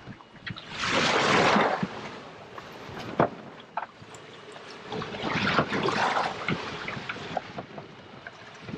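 Water splashing and sloshing in a boat's livewell as a hand reaches in after live squid, in two bouts, about a second in and again near the middle, with a couple of sharp knocks in between.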